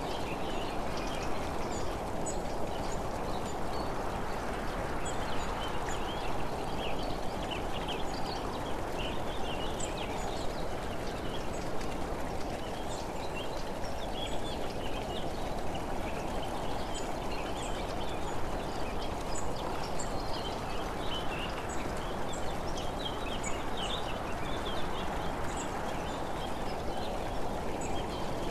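Steady rush of wind and road rumble while moving along the road, with many short, high bird chirps scattered throughout.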